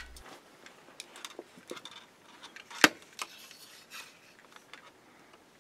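Small plastic clicks and light rattling as a Bachmann model-train speed controller is handled and a power-pack cable plug is pushed into its socket, with one sharp click a little under three seconds in.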